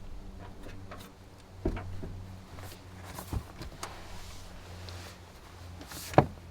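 A few light knocks and clicks of things being handled inside a car, over a low steady hum.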